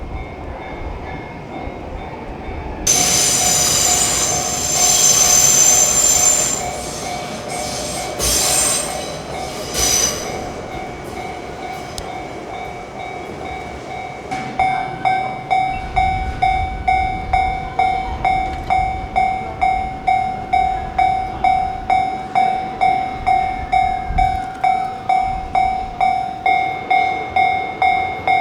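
An electric train passes a Japanese level crossing, a loud rush of wheels and motors from about three seconds in that fades by about ten seconds. From about halfway, the crossing's electronic alarm bell rings its steady "kan-kan", a little under two strokes a second.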